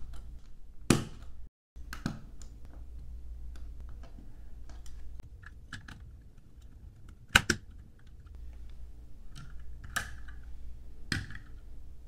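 LEGO plastic bricks clicking and snapping together as the helicopter's tail boom is pressed onto its body, with light handling rattles between. A handful of sharp snaps stand out, the loudest a double snap about seven seconds in.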